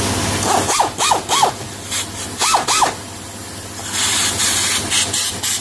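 Ryobi handheld rotary tool cutting a hole through the fender panel along a marked outline: a steady motor hum under a rasping grind, broken by a few short squeals about a second in and again around two and a half seconds.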